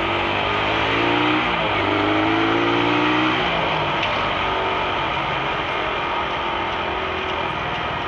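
Motorcycle engine rising in pitch twice as the bike accelerates, over steady wind and road noise. In the second half the engine settles into a steadier, quieter cruise.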